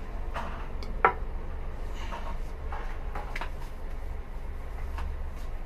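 A single sharp knock about a second in, with a few faint short scattered sounds over a steady low hum.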